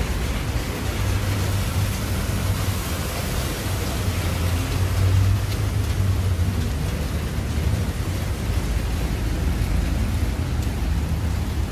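Steady hiss of rain falling on a wet street, with a low rumble underneath that is strongest in the first half.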